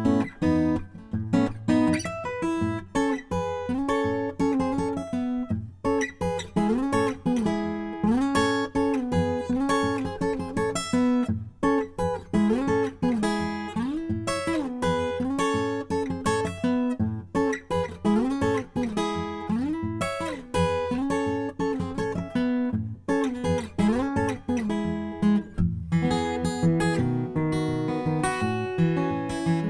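Acoustic guitar playing an instrumental arrangement, with a melody line over low bass notes.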